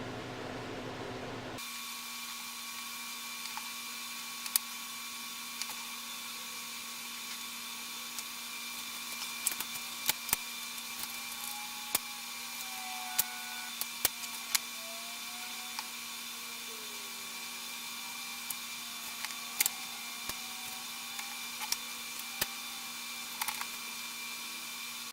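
A small electric motor running steadily with a hum and a high whine, starting about a second and a half in and cutting off sharply at the end, with scattered light clicks and knocks over it.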